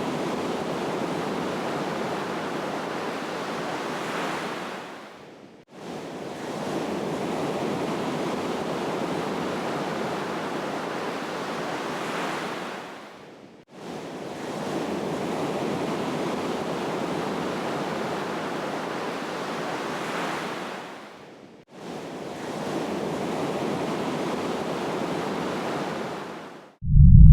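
Rush of ocean surf, a steady wash of waves that fades out and starts again about every eight seconds, as a looped sound bed. Near the end a loud low rumble cuts in suddenly.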